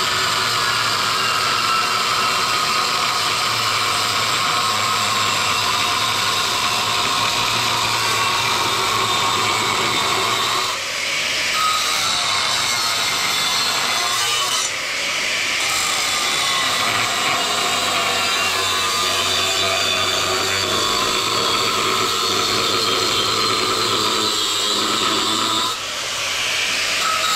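Angle grinder with a new cut-off wheel cutting through the steel shell of a refrigerator compressor: a steady, loud grinding whine that dips briefly three times, about a third of the way in, about halfway and near the end, as the wheel eases off the work.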